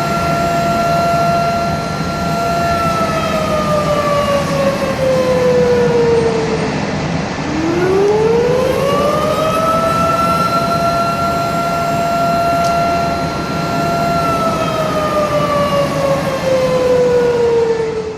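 Outdoor tornado warning siren sounding a slow wail: a steady held tone that slides down in pitch, rises again about halfway through, holds, and falls once more near the end, over a steady background rush.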